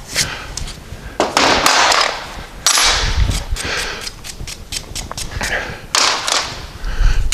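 Sharp metallic clicks and knocks of steel parts being handled on a workbench, with a few short bursts of rushing noise and a couple of heavier thuds.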